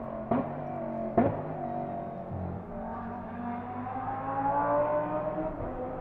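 GT race car engine running, with two sharp cracks within the first second and a bit, then a slowly rising engine note.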